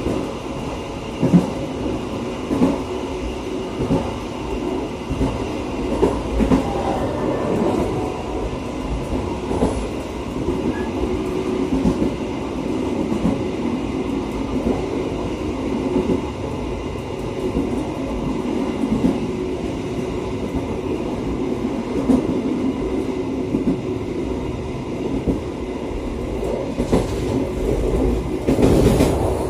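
Passenger train running at speed, heard from its rear car: a steady rumble of wheels on rails with repeated knocks as they pass over rail joints. Near the end the clatter grows louder as the wheels run over a set of points.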